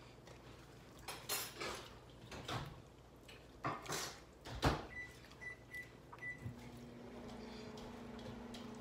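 Clicks and knocks of handled kitchenware, with one heavier thump about halfway through. Then come four short electronic beeps and a steady hum that starts about six and a half seconds in: a microwave oven being set and switched on.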